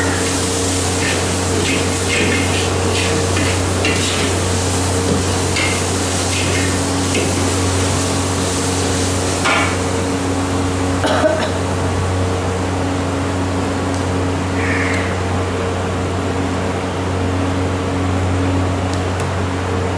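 Metal spatula scraping and clinking against a steel wok while stirring grated coconut, with short strokes for about the first half that then stop. A steady low mechanical hum runs underneath throughout.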